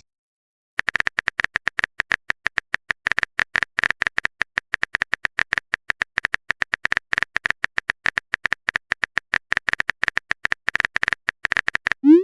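Rapid, irregular clicking of a typing sound effect, like key taps on a phone keyboard, running for about eleven seconds after a short silence. A rising swoop of a message alert begins right at the end.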